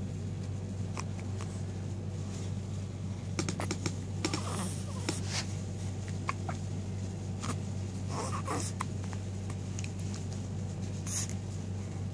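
Someone hiccuping a few times, several seconds apart, over a steady low hum, with small scattered clicks in between.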